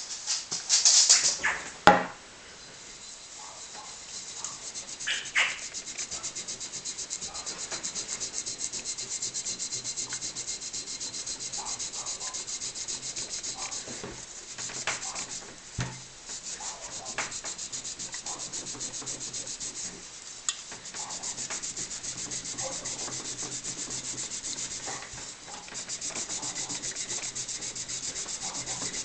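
Fast back-and-forth hand rubbing with an abrasive on a metal miner's lamp, scrubbing off heavy grime, with a few short breaks. A loud rustle and a knock come about a second in.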